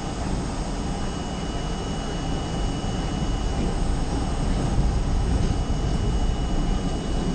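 R32 subway train running through the tunnel, heard from inside the lead car: a steady low rumble of wheels on rail with a thin, steady high-pitched whine over it.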